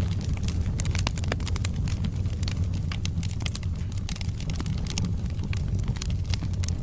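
Wood fire burning in a fireplace: a steady low roar of the flames with many scattered sharp crackles and pops from the burning logs.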